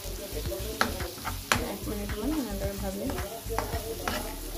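Thick onion-tomato masala sizzling as it fries in a nonstick pan, stirred with a metal spoon that scrapes and knocks against the pan in irregular sharp clicks.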